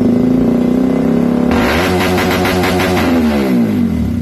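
Motorcycle engine revving: a steady note, then a sharp rev about a second and a half in, after which the pitch falls away over the last second.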